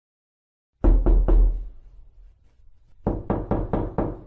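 Knocking on a door: three quick knocks about a second in, then after a pause a run of five more.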